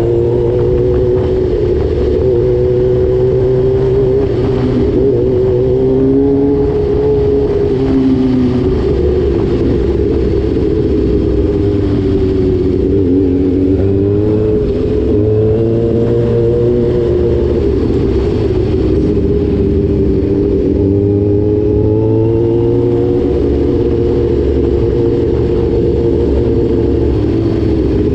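Motorcycle engine running while riding, its pitch rising and falling gently with changes of throttle.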